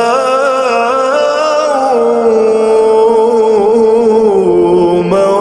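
A man's voice singing Arabic verse in a slow, ornamented melisma, drawing one word out over long, wavering held notes.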